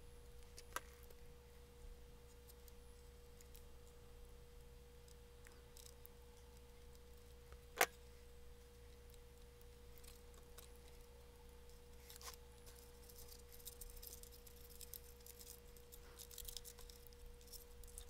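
Very quiet handling of thin wires over a faint steady hum, broken by a few sharp clicks, the loudest about eight seconds in, as crimped wire terminals are pushed into a plastic Molex header until they click.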